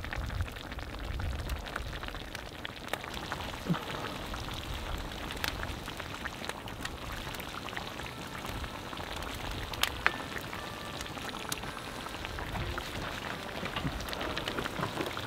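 Wood campfire crackling with occasional sharp pops, under a cast-iron Dutch oven of tomato sauce simmering and sizzling over the flames.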